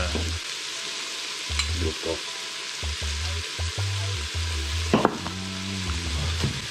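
Food sizzling steadily in a frying pan, with a sharp knock about five seconds in.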